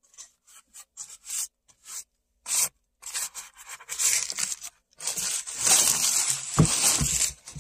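Crumpled paper being handled: a few short scratchy strokes at first, then from about three seconds in a dense rustling and crinkling of paper, with two low thumps near the end.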